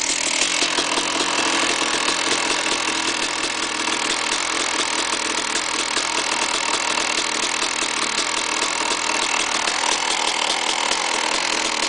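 KTM 380 SMR's two-stroke single-cylinder engine running steadily at idle, with a fast, even ticking texture over the engine note: an engine noise that the owner calls bad.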